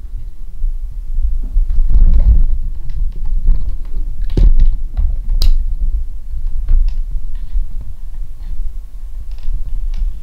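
Handling noise on a handheld camera's microphone: a low rumble with scattered clicks and taps as the camera is fiddled with and moved.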